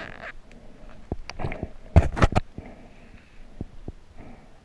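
Underwater sound: scattered clicks and knocks with low gurgling water, and a quick cluster of loud sharp clicks about two seconds in, as a gloved hand handles fishing line close to the camera.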